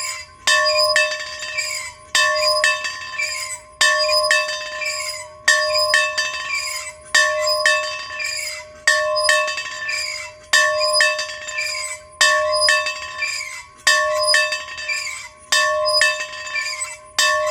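A bell rung over and over, with a loud strike about every 1.7 seconds, each ringing on with a clear tone, and lighter clinks between the strikes.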